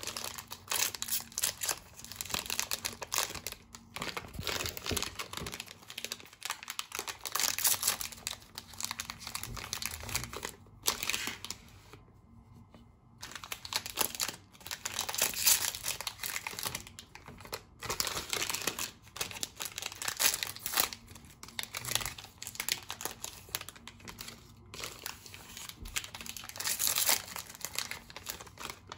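Crinkly plastic wrappers of Lotte Choco Pie snack cakes being torn open and crumpled by hand, one packet after another, with a brief lull partway through.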